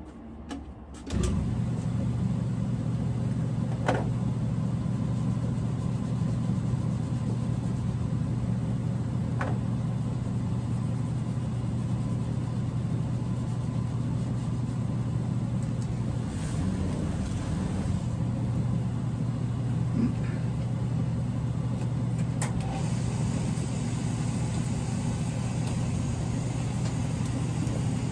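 An electric machine motor switches on about a second in and runs with a steady hum, with a few faint clicks over it.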